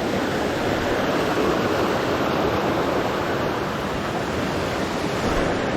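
A waterfall on a creek, water rushing steadily over the rocks close by.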